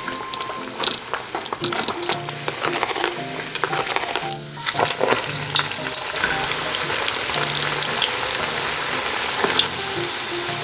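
Churro dough deep-frying in a pot of hot oil: a crackling sizzle that grows thicker and steadier from about halfway.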